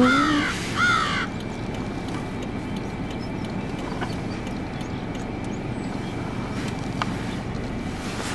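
A crow caws twice in quick succession, then there is only a steady low background rumble.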